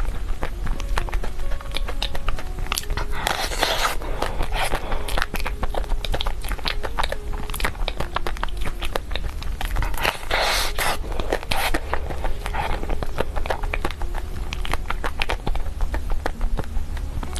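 Close-miked eating of chocolate cake: a run of small wet mouth clicks and chewing sounds, with two louder stretches of rustling, scraping noise, about three seconds in and again about ten seconds in. A steady low hum runs underneath.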